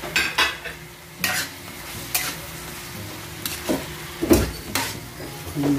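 Metal spatula scraping and clanking against a metal wok while stirring raw pork cubes into sautéing tomato, garlic and onion, over a frying sizzle. The strokes come as a series of separate scrapes, the loudest about four seconds in.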